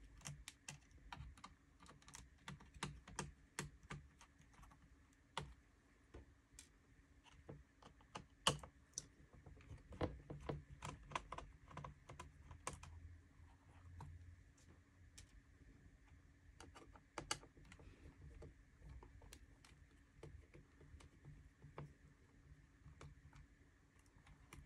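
Light, irregular clicks and taps of fingers and a small screwdriver on a Dell Latitude E7450 laptop's keyboard as its screws are being removed.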